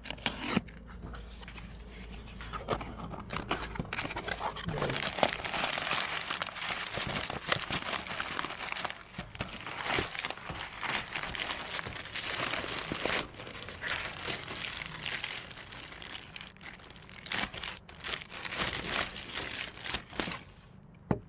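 Old packing tape torn and peeled off a cardboard box, then crumpled brown packing paper rustling and crinkling as hands dig through it, with scattered clicks and knocks of cardboard.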